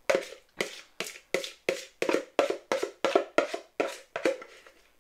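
Metal spoon knocking and scraping against a plastic mixing bowl while food is scraped out into a casserole dish: a quick series of hollow taps, about three a second.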